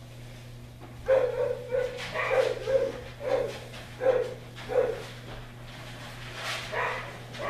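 Dog barking: a quick string of short barks starting about a second in, then two more near the end.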